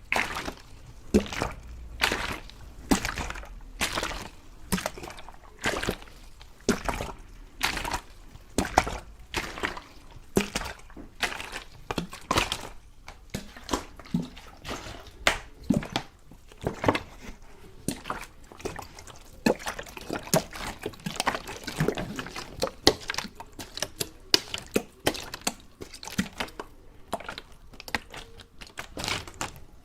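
Close-miked water being handled for ASMR: irregular splashes, drips and sloshes, about one or two a second.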